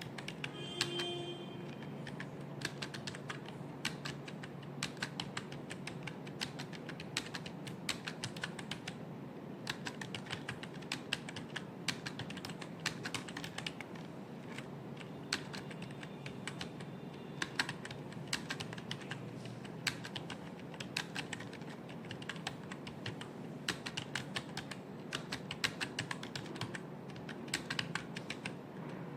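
Continuous typing on a computer keyboard: a fast, irregular stream of key clicks with some harder keystrokes, and a brief tone about a second in.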